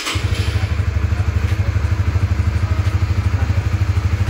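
Honda CB150R's single-cylinder four-stroke engine, just started, running at a steady idle with an even, rapid pulsing beat.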